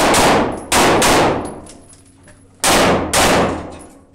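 Five handgun shots in a tunnel: one at the start, then two quick pairs, about a second in and near three seconds in. Each shot rings on in a long echo off the tunnel walls.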